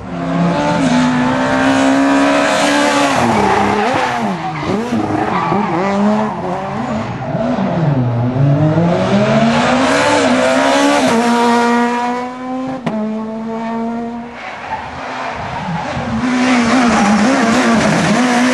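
S2000 rally cars' two-litre naturally aspirated four-cylinder engines driven hard on a stage, one car after another: revs rising through the gears, dropping as they lift and brake for corners, then climbing again, with a single sharp crack partway through.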